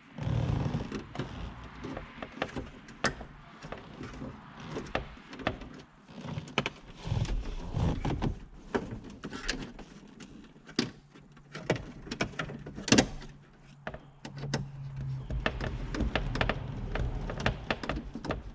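Irregular clicks, taps and rattles of hard plastic dash trim and small screws being handled and fitted by hand.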